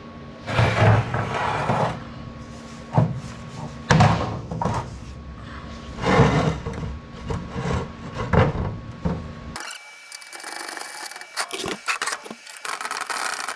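Knocks, clatters and scrapes from sections of an aluminum wheelchair ramp being handled and folded, which tests whether a freshly welded hinge still lines up. About two-thirds of the way through, the sound switches abruptly to a thin hiss with faint high tones and a few sharp clicks.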